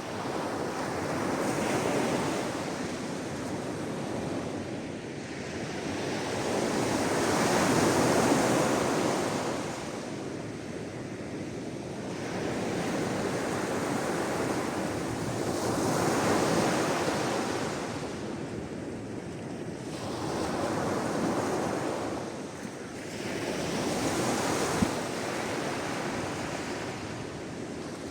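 Sea waves washing in on a shore, the rush swelling and fading every few seconds, with one short tick near the end.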